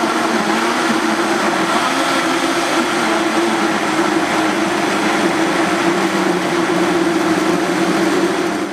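Blender running steadily, blending bananas with chocolate soy milk; a loud, even motor hum with hiss over it. It cuts off at the very end.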